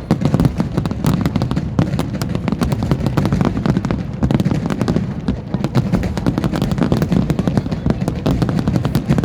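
Fireworks display: a dense, continuous barrage of bangs and crackles, many each second.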